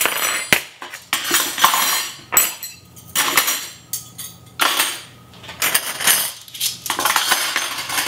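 Stainless steel flatware clinking and clattering as handfuls of forks, spoons and knives are gathered and set down on a countertop, in a series of short bursts with brief pauses between.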